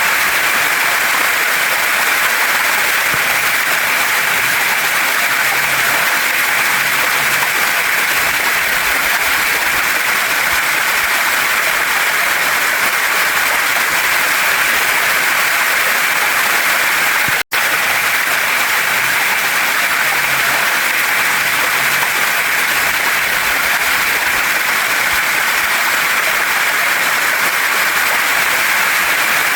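Steady rushing of a waterfall and mountain stream flowing over rocks, an even hiss strongest in the upper-middle range. It cuts out for an instant about 17 seconds in.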